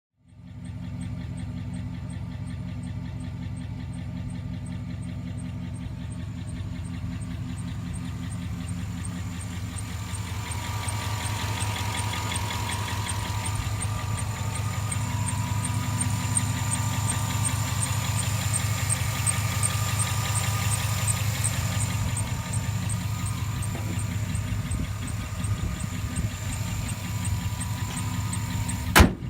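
2007 Chevrolet Silverado 1500 engine idling with a fast, even ticking throughout, the noise of bad lifters in an engine with no oil pressure. A single sharp click near the end.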